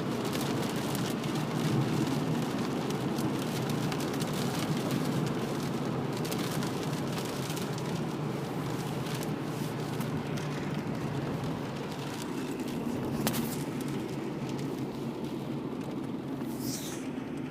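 Storm wind gusting hard with rain, a steady low rumble dotted with small ticks and clicks.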